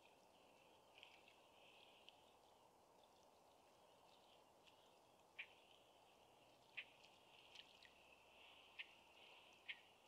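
Faint outdoor ambience: a steady, thin high-pitched hum of distant calling creatures, broken by a handful of short, sharp high ticks, most of them in the second half.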